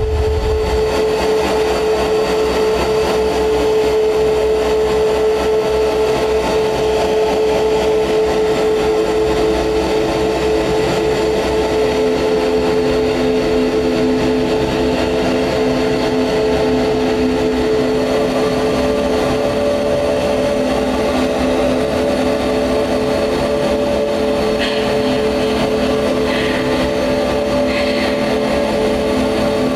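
Industrial noise music played live: a loud, unbroken electronic drone of steady held tones over a rumbling low end, with further lower and higher tones joining about a third and about halfway through.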